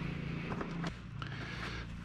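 Plastic body panels of a Can-Am Spyder RT being handled and fitted, giving a few light clicks and knocks over a steady low hum.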